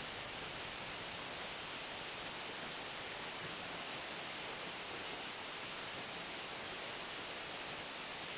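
Steady rainfall, an even hiss of rain with no single drops standing out.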